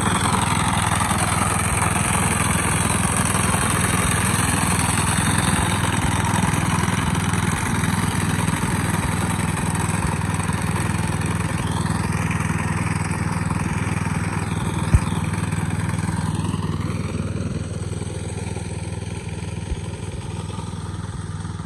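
Petrol engine of a BSC 840 walk-behind two-wheel tractor running steadily under load while its front cutter attachment mows tall grass. A single sharp click stands out about two-thirds of the way through.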